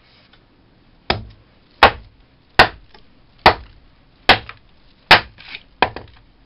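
Husqvarna carpenter's axe chopping into a wooden board on a chopping block: seven sharp strikes, about one every 0.8 seconds, starting about a second in.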